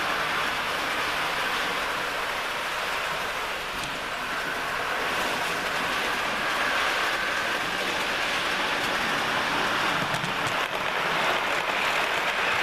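OO gauge model train running through the layout: a steady whirr from its small electric motor and its wheels running on the rails.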